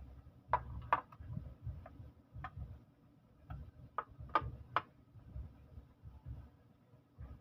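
Irregular light clicks and taps, some in quick pairs, over dull low thuds, like small hard objects being handled or tapped.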